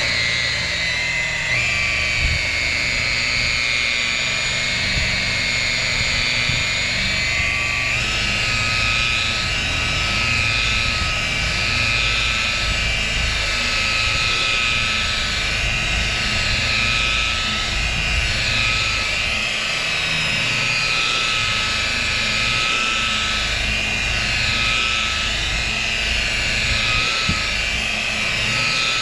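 DeWalt rotary polisher with a wool pad running steadily against a car door panel, buffing out 1500-grit wet-sanding marks. Its high motor whine steps up slightly in pitch about eight seconds in.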